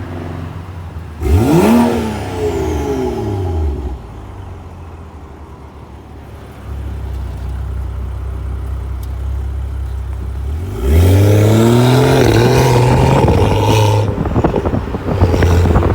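Tuned BMW 535i with aftermarket downpipes and mufflers revving through its exhaust. There is a quick blip about a second in, then a steady run, and a longer rev held for about three seconds near the end that falls away into crackles and pops as the throttle closes.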